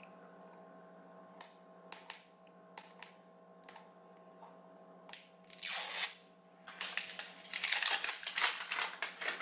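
Plastic jars of acrylic nail powder being handled: a few light clicks and taps, then a loud rustle and several seconds of dense crinkling of packaging, over a steady faint electrical hum.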